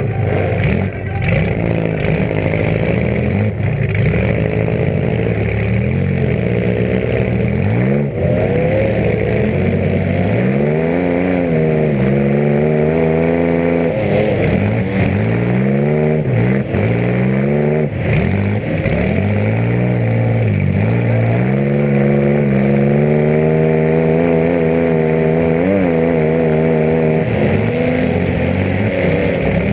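Demolition derby compact car's engine running through short upright open exhaust pipes, heard close by the pipes. It revs up and drops back over and over as the car is driven, with a few brief knocks along the way.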